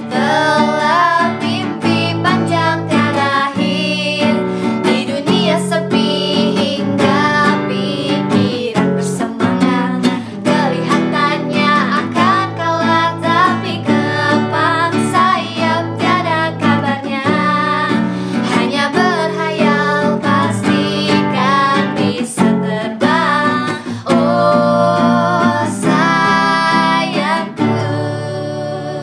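A woman singing to a strummed acoustic guitar.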